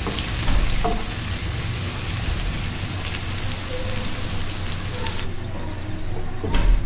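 Chopped onion and green chillies sizzling in hot oil in a nonstick frying pan, stirred with a wooden spoon, with a few light spoon scrapes. The hiss is steady, and its high part thins out about five seconds in.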